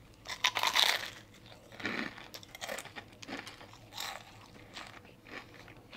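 A bite into a Popeyes fried chicken thigh, the breaded crust crunching loudly about half a second in, followed by close-up chewing with smaller crunches every half second or so.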